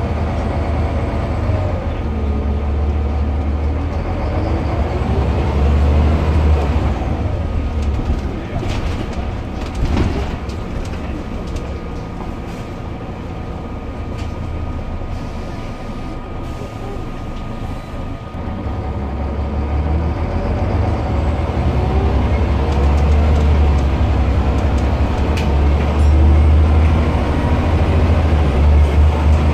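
Onboard sound of a Scania L94UB single-deck bus on the move: a deep diesel drone with a whine that rises and falls in pitch as it pulls through the ZF gearbox. It eases off about a third of the way in, with a few rattles, then pulls away again and grows louder from about two-thirds in.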